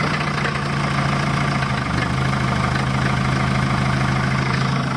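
Mercedes-Benz van engine idling steadily, heard close to the tailpipe of an exhaust that has been patched up with steel wire and tape after breaking.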